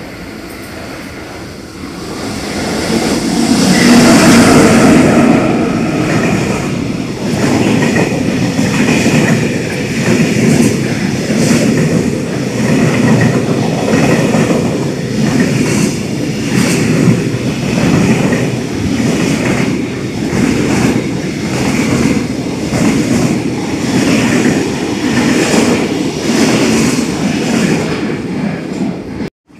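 Freight train hauled by a JR EF64 electric locomotive passing through a station at speed. The locomotive's approach builds to its loudest about four seconds in, then a long string of tank wagons goes by with a steady rhythmic clatter of wheels over rail joints, until the sound cuts off suddenly near the end.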